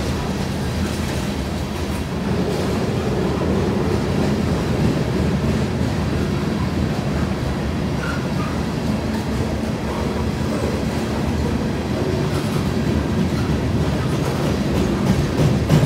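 Covered hopper cars of a freight train rolling past at speed: a steady, unbroken rumble of steel wheels on the rails.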